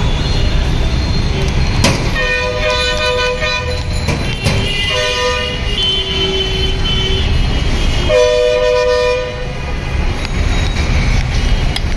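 Vehicle horns honking in street traffic: four held blasts of about a second each, from at least two horns of different pitch, over a steady low traffic rumble.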